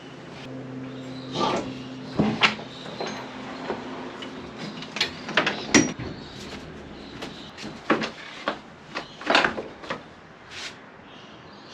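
Irregular knocks, clunks and short scrapes of hard objects being handled, about a dozen of varying loudness, over a faint steady low hum.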